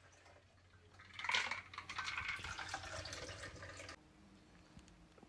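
Cocktail poured from a metal shaker through its strainer into a martini glass: a splashing trickle that starts about a second in and stops near four seconds.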